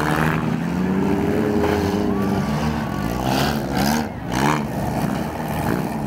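Several compact demolition-derby car engines revving at once. Their pitches rise and fall unevenly as the cars push and ram one another.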